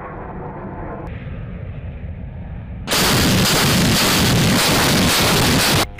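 A muffled, steady aircraft cockpit rumble, then about three seconds in a sudden, loud, continuous barrage from a line of self-propelled howitzers firing together. The barrage cuts off abruptly near the end.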